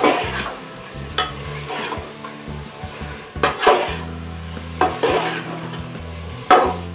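A steel spatula stirring and scraping mutton and masala as they fry in oil in an aluminium pressure cooker. There is a sizzle throughout, and metal scrapes and knocks against the pot about every second or two, the sharpest at about three and a half and six and a half seconds in. This is the bhuna stage, the meat being browned with the spices.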